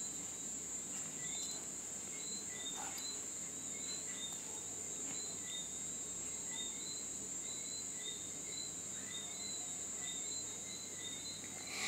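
Crickets chirping: a steady high trill with short chirps repeating regularly, about every half second.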